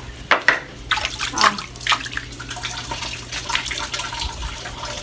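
Water splashing in a concrete laundry sink as a rubber flip-flop is swished and rinsed, with a few sharp splashes and knocks in the first two seconds.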